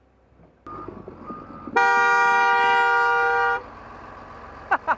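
A vehicle horn sounds one steady blast of just under two seconds, starting about two seconds in and cutting off sharply, over background vehicle noise.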